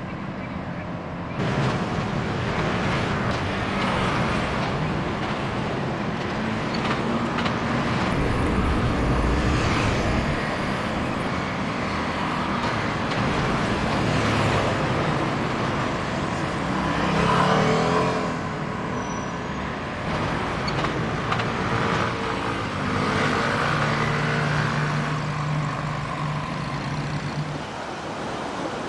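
Road traffic noise: vehicle engines running and passing, with the loudness swelling and easing as they go by.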